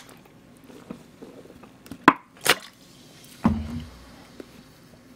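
A person drinking cola from a plastic bottle: quiet swallows, then a sharp click about two seconds in, a short breathy exhale just after it, and a low thud a little over three seconds in.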